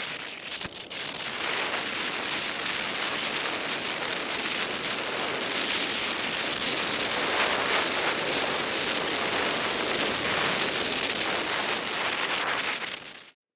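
Steady hiss of skis running over snow, mixed with wind rushing over the microphone while skiing downhill. It cuts off suddenly near the end.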